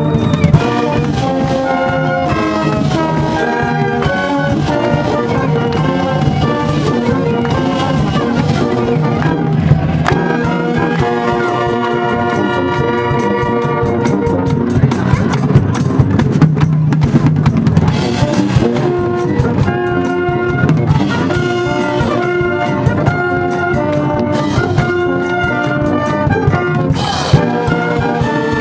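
School cheering brass band of trumpets and trombones with drums, playing a continuous cheering tune of held, moving melody notes over a steady drum beat.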